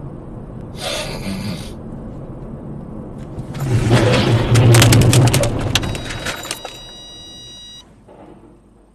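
Road and engine noise inside a moving car, then a truck crossing into the lane slams into the SUV just ahead: a loud, long crash of crunching metal and shattering glass with a heavy rumble, lasting about three seconds. Right after it a steady high electronic tone sounds for about a second and cuts off suddenly.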